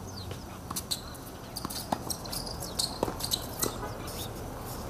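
Small birds chirping in quick high notes, mixed with a few sharp pocks of a tennis ball struck by rackets about two and three seconds in.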